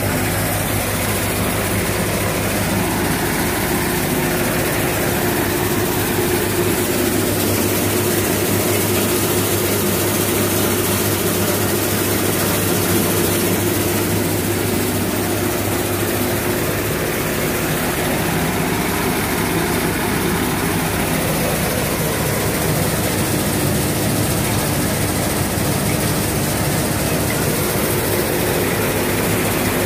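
Massey Ferguson 241 DI tractor's diesel engine driving a threshing machine threshing fenugreek: a steady machine drone at an even pitch.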